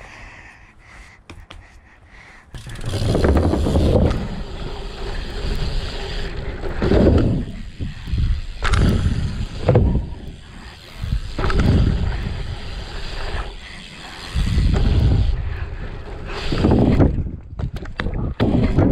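A BMX bike rolling fast along a dirt-jump line, with wind buffeting the action-cam microphone in repeated low rumbling swells and tyre noise on the dirt. The first couple of seconds are quieter, with a few small clicks, before the rush of riding sets in.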